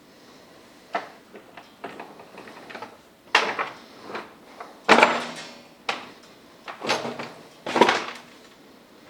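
Irregular series of heavy metallic clanks and knocks, half a dozen or so, the loudest about five and eight seconds in, some ringing briefly: steel lifting gear and jack being worked around a metal lathe.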